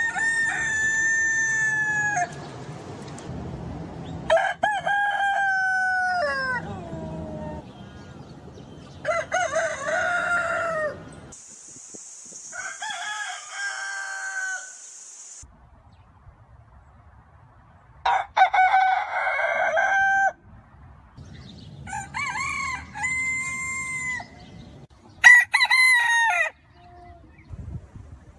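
Domestic roosters crowing: about seven separate cock-a-doodle-doo calls, each two to three seconds long, several ending in a falling tail, with short pauses between.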